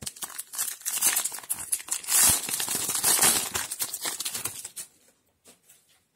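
A trading-card booster pack's foil wrapper being torn open and crinkled as the cards are pulled out. The crackling is loudest in the middle and dies away about five seconds in.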